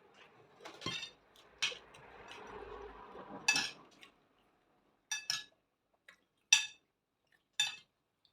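Cutlery clinking against dishes while eating: a series of about eight sharp clinks, the later ones ringing briefly.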